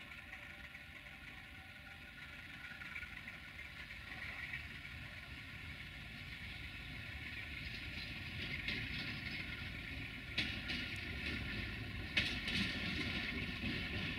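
An ADH11 diesel multiple unit approaching at low speed. Its engine and transmission give a steady drone with a whine that grows louder as it nears, and a couple of sharp clicks come from the wheels near the end.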